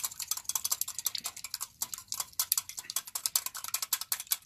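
Wire whisk beating a raw egg in a ceramic bowl, its wires clicking quickly and evenly against the bowl's sides.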